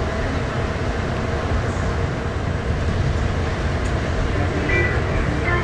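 Rubber-tyred automated people-mover train running steadily through its underground tunnel, with a continuous low rumble of wheels and motors. Faint passenger voices come in near the end.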